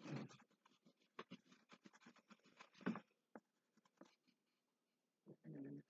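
A brown wax crayon scribbling on paper as a hat is coloured in: rapid back-and-forth strokes for about three seconds, then a few scattered strokes. A short low hum comes near the end.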